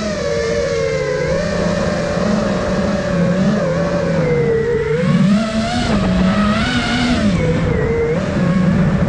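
Five-inch FPV quadcopter's brushless motors whining, the pitch rising and falling continuously with the throttle, over a rushing haze of air and prop noise.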